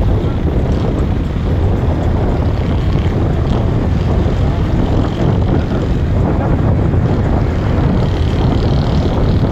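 Steady rumble and wind rush of a car driving along, road and engine noise with wind buffeting the microphone.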